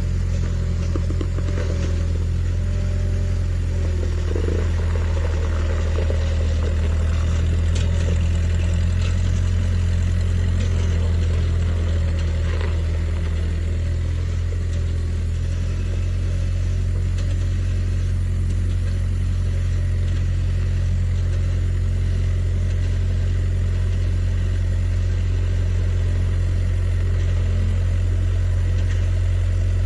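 A vehicle engine running steadily with a deep, even hum, with a few light clattering knocks in the first dozen seconds.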